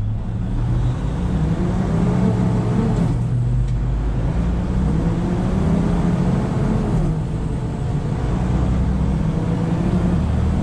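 Truck's diesel engine and road noise heard from inside the cab while driving, a steady low hum. A fainter whining tone rises and falls twice.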